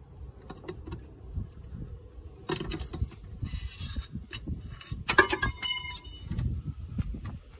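A metal pipe used as a cheater bar on a wrench clanks against metal about five seconds in and rings for about a second, among scraping and handling noises.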